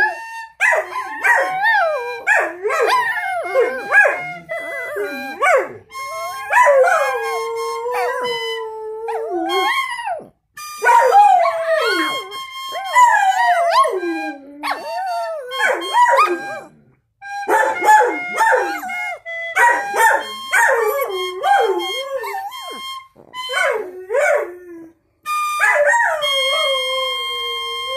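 Dogs howling along to music: long wavering howls that slide up and down in pitch, sometimes two voices at once, broken by short pauses. A held musical note sounds under the howls near the end.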